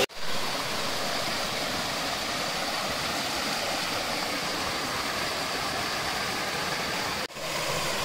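Water pouring steadily from carved stone spouts and a small cascade into a pool: an even rushing splash, broken for an instant about seven seconds in.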